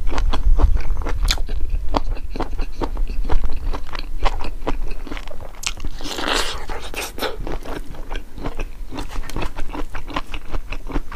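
Close-up eating sounds of a person chewing and biting a mouthful of chicken gizzard curry and rice, with many quick wet mouth clicks and a brief rushing sound of breath or slurping about six seconds in.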